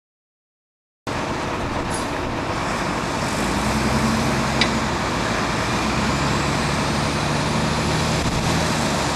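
Heavy recovery truck driving, its engine running steadily under a haze of road and tyre noise; the sound cuts in abruptly about a second in, with a short click about halfway.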